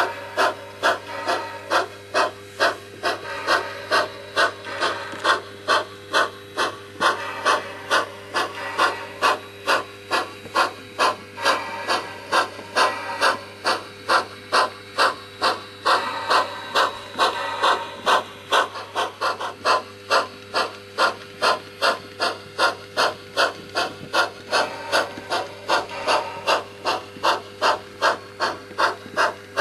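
HO-scale Pennsylvania Railroad 0-6-0 steam switcher model with a Tsunami sound decoder, its speaker playing a steady steam exhaust chuff, about two to three beats a second, over a steady low hum.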